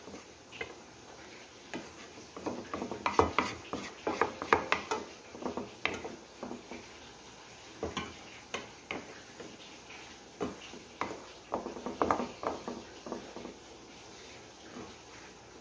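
Metal tongs and utensils clicking and tapping against a glass baking dish and a stainless mixing bowl while thick creamy sauce is worked over the potatoes, in irregular clusters of sharp clicks.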